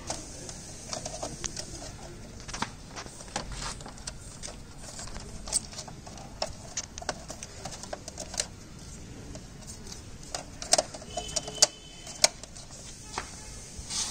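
Irregular clicks and light knocks of plastic and sheet-metal parts being handled and fitted on an air conditioner indoor unit as its metal cover plate goes onto the electrical box. The sharpest clicks come in a cluster near the end.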